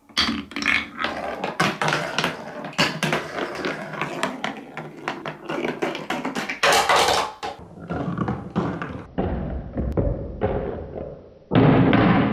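A marble-run ball rolling and clattering down a wooden Trix Track run: a quick string of knocks and clicks through the spinner and down the slopes, then sparser, fainter knocks along a plastic wave track. Near the end a sudden louder hollow drumming as it drops into the plastic bed of a toy dump truck.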